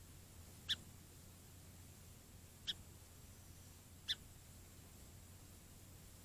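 Song sparrow giving short, sharp chip calls, three of them a second or two apart.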